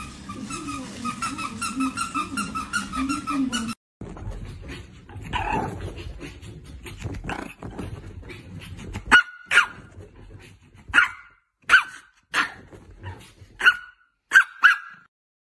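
Dog barking: about eight short, sharp single barks over the last six seconds. Before them, a steady wavering pitched sound that cuts off abruptly about four seconds in.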